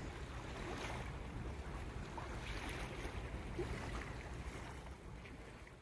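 Steady outdoor ambience of wind and choppy river water, an even rushing noise, fading out near the end.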